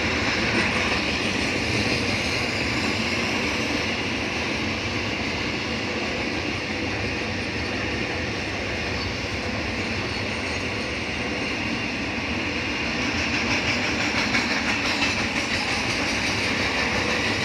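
Container flat wagons of a diesel-hauled freight train rolling steadily past, steel wheels clattering over the rail joints. The clatter grows a little louder and more rhythmic near the end.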